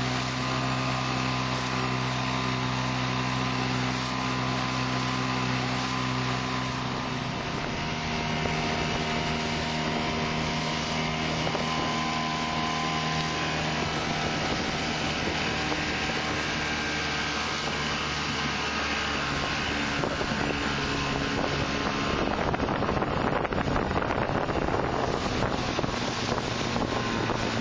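Small outboard motor driving an inflatable dinghy across open water, with water rushing past and wind on the microphone. The engine note changes about seven seconds in, and the wind and water noise grows louder near the end.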